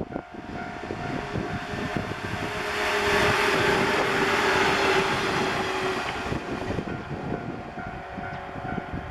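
Japanese level-crossing warning bell ringing in a steady repeating chime while a train passes over the crossing; the train's noise swells about two and a half seconds in and dies away after about six seconds.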